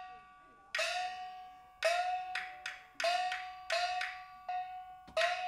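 Backstage percussion accompanying a Taiwanese glove-puppet show: one pitched percussion instrument struck about ten times in an uneven rhythm, each stroke ringing at the same note and fading away.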